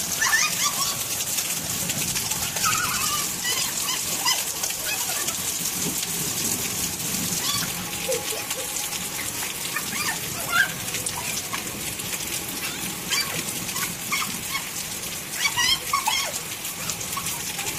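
Steady rain falling on a hard tiled rooftop, with children's short high-pitched calls now and then, a cluster of them near the end.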